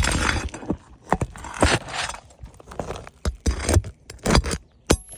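Irregular scraping, clicks and clinks of hand tools working under old, brittle roof shingles to get at the nails.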